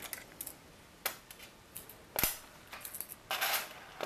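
Small metal clicks as Torx screws are worked out of an iMac G4's drive carriage with a small multi-bit screwdriver tool, a few separate ticks about a second apart. Near the end comes a short metallic rattle as loose screws are set down on the removed base plate.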